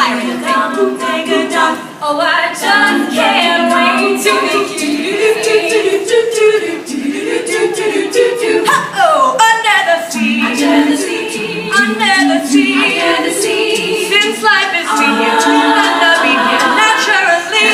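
All-female a cappella group singing in close harmony, several voices sustaining and moving chords under a melody, with no instruments.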